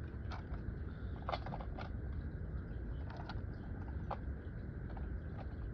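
A plastic box liner and cardboard packaging being handled, giving a few light crinkles and taps over a steady low hum.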